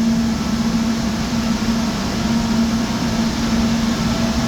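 Steady whir of running server and equipment-room cooling fans: an even hiss with a constant low hum under it.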